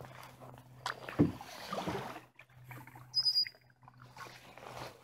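A canoe being worked through a marsh with a wooden pole: a sharp knock about a second in, then a couple of water swishes. A short, high chirp falling in pitch comes a little after three seconds.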